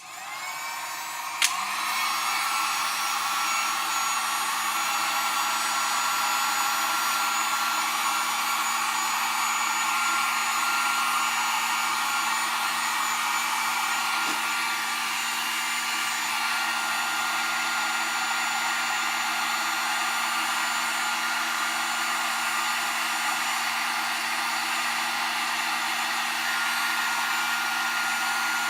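Electric heat gun switched on and warming a vinyl overlay. Its fan spins up over about a second and a half, then runs steadily with a constant hum and whine.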